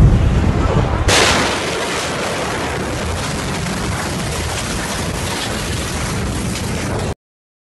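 The 2020 Beirut port ammonium nitrate explosion heard close to the blast: a deep boom, then about a second later a sharp crack as the blast wave arrives, followed by several seconds of loud rushing noise. The sound cuts off suddenly near the end.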